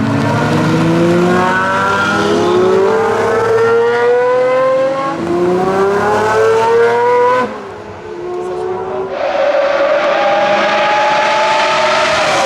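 V12 supercar engine accelerating hard, its note climbing in pitch through a gear, dropping with an upshift about five seconds in and climbing again. About seven and a half seconds in the engine note falls away suddenly, as on lifting off the throttle. A steady high engine note comes back about nine seconds in.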